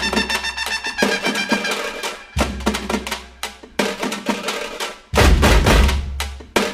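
Background music with drums and a heavy bass beat.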